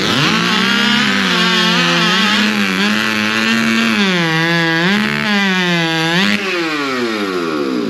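Two-stroke race chainsaw at full throttle through a cut, its pitch sagging and recovering under load. About six seconds in the revs fall away as the throttle is released.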